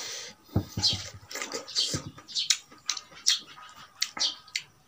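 Close-miked eating: wet chewing and lip-smacking, with irregular sharp mouth clicks several times a second.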